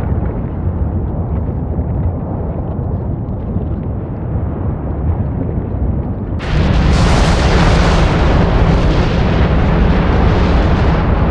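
Fagradalsfjall volcanic eruption: a deep, steady rumble, then about six seconds in an abrupt switch to a much louder, fuller rush of noise with hiss up high.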